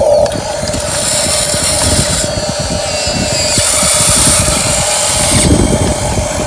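Small electric motors of a Huina 1550 remote-control excavator whining in two stretches that start and stop, over a constant hum and a rough low rumble.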